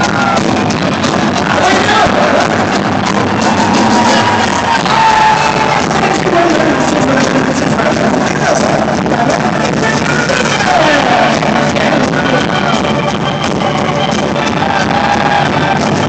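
Live rock band playing, heard from the audience on a phone recording, with pitches sliding up and down above the band.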